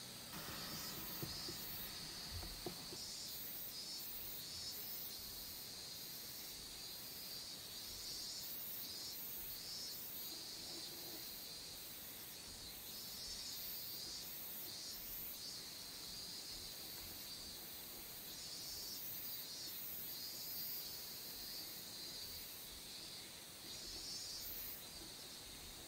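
Dry drawing stick scratching across sketchbook paper in short, irregular strokes: a faint hiss that comes and goes.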